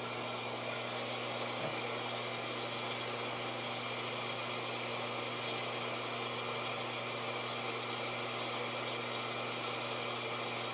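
Steady rush of water from a non-electric bidet seat's spray wand running into the toilet bowl during a test run.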